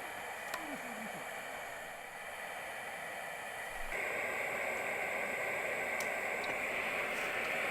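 Steady hissing and bubbling of a pot cooking over a camp burner, with a few faint clicks. The hiss jumps louder about four seconds in.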